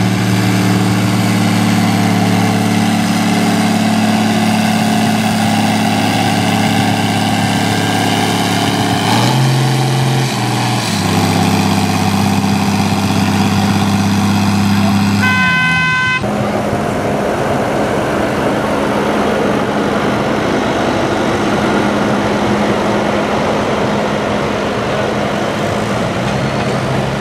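John Deere 3040 tractor's diesel engine running hard under load while pulling a weight-transfer sled, its pitch dipping briefly about ten seconds in. A short horn toot sounds just past halfway, then a Fendt tractor's engine takes over, running under load with a rougher sound.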